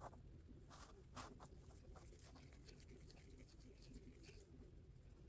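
Near silence with faint, irregular clicks and scrapes of a stir stick working in a cup of two-part epoxy resin, the loudest about a second in.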